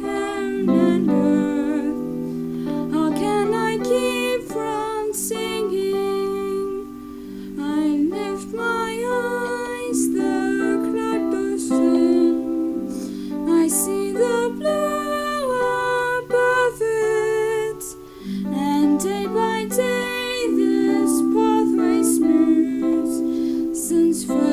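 A hymn sung slowly as a melody over held accompaniment chords.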